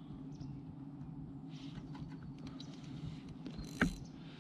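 Fishing line snapping on a bottom snag: one sharp snap about four seconds in, after faint small ticks over a low steady hum. The lost rig is a drop shot.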